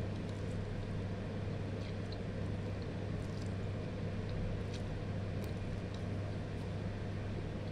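Steady low hum of a running appliance, with a few faint small clicks and noises from eating noodles with a plastic fork.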